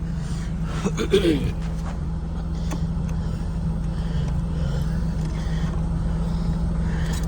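Car engines idling steadily in the background, a Pontiac Trans Am and a BMW left running to charge their batteries, with a brief squeak about a second in.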